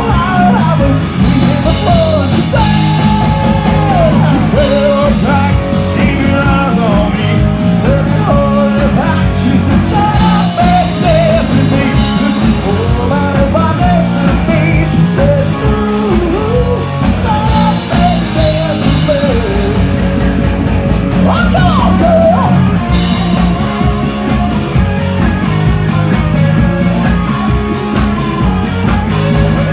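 Live rock band playing: a lead singer over electric guitars, bass guitar and a drum kit, loud and steady throughout.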